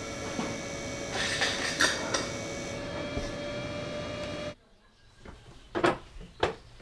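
A machine running steadily with a whir made of several steady tones, which cuts off suddenly about four and a half seconds in. Near-quiet follows, broken by a few short, sharp sounds.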